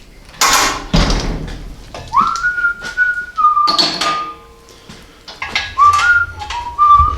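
A person whistling a short tune, held notes stepping up and down, in two phrases about two seconds in and again near the end. Short loud hissing bursts come about half a second in and about four seconds in.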